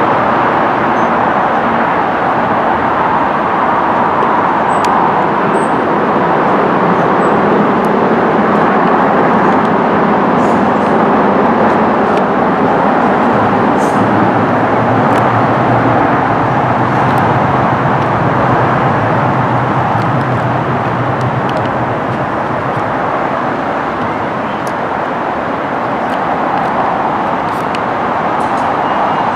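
Steady road-traffic noise. About halfway through, a low steady hum joins in as a London Underground train comes out of the tunnel and approaches.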